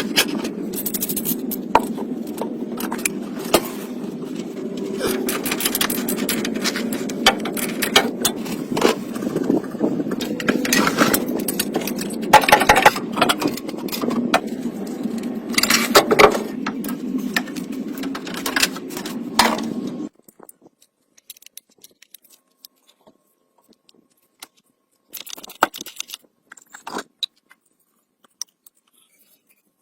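A motor runs with a steady hum, overlaid by frequent metallic clatter, clicks and scrapes. It cuts off suddenly about two-thirds of the way through, leaving only scattered faint taps and clicks.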